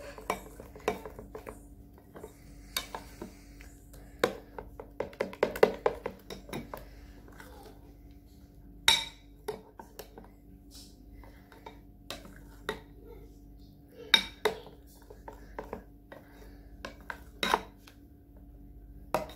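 Metal spoon stirring thin, dosa-consistency pancake batter in a glass bowl, with irregular scraping and clinking against the glass. Sharper single clinks come about 9, 14 and 17 seconds in, over a faint steady hum.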